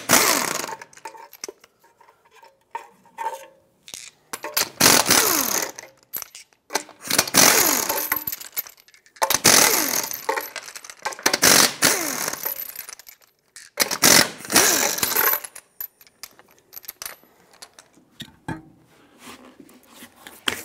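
Impact wrench with a 21mm socket zipping the lug nuts off a 4Runner's front wheel, in about six loud bursts, one per nut, with short pauses between.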